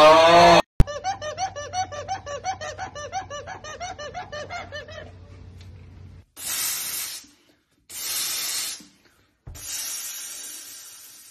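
A loud cartoon voice cry cuts off under a second in, followed by rapid, high-pitched cartoon laughter for about four seconds. Then an aerosol spray can hisses in three separate sprays of about a second each.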